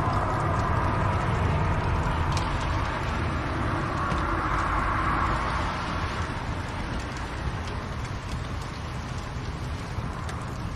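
Wood fire burning in a fireplace: a steady hiss and low rumble with scattered sharp crackles and pops, easing slightly a little past halfway.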